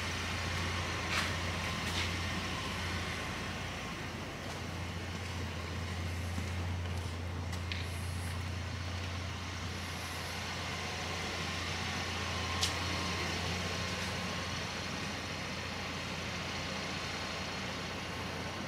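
A vehicle engine running steadily with a low hum, and a few faint clicks over it.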